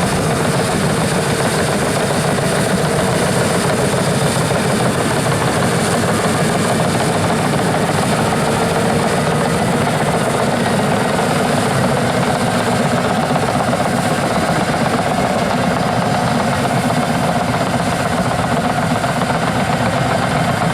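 Caterpillar D6N LGP bulldozer's diesel engine running steadily under load as the dozer pushes peat.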